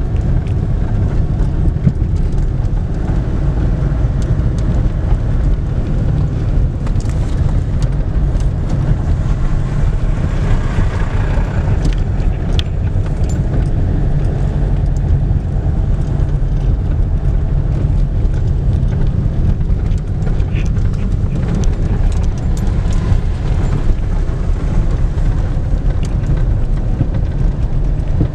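Car driving along a rough dirt and gravel road, heard from inside the cabin: a steady low rumble of tyres and engine, with a few scattered small clicks.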